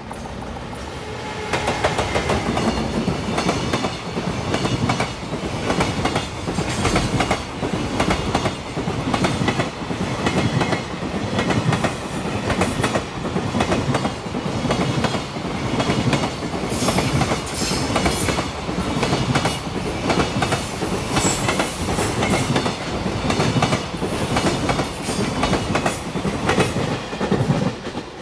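Freight train rolling past close by, its wheels clacking over the rail joints in a long, steady run of clicks that builds up about a second and a half in.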